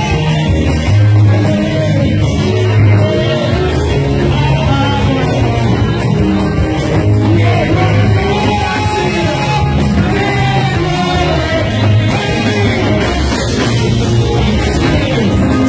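Loud church praise-and-worship music: a band with a heavy bass line and voices singing together, playing without a break.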